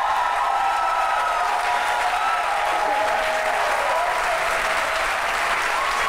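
Large theatre audience applauding steadily, with some wavering pitched voices or cheers over the clapping.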